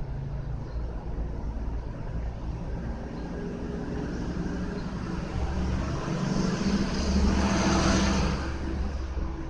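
A motor vehicle's engine passing close by: a low steady hum that swells from about five seconds in, loudest with a rushing hiss around eight seconds, then fades.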